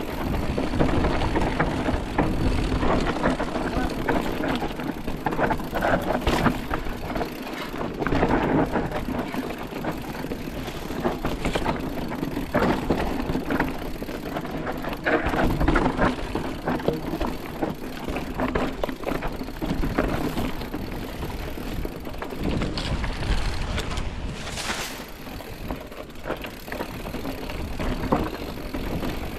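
Mountain bike riding down a dirt trail: tyres rolling over rough ground with frequent knocks and rattles, loudness surging and dipping unevenly, and wind rushing on the microphone.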